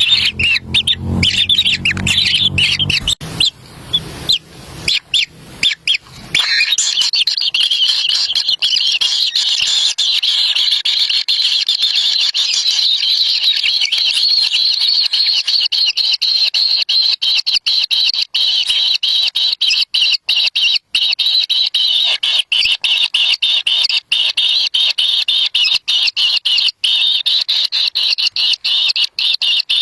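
Kingfisher chicks begging for food at the nest, a high-pitched calling that becomes continuous from about six seconds in. A low rumble and knocks come in the first few seconds.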